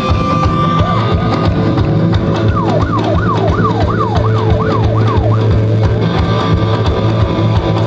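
Live band playing with a steady beat and bass. Partway through, a siren-like effect sweeps down in pitch about seven times in quick succession over the music.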